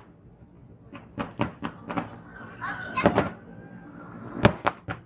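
Fireworks bursting: a run of sharp bangs, four in quick succession about a second in, a louder one near three seconds and two more near the end.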